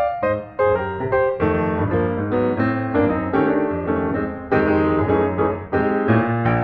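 Background piano music: a melody of separate notes over chords.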